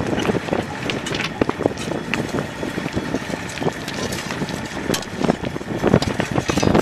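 Tracked mini excavator's engine running as it works, with wind buffeting the microphone and scattered knocks.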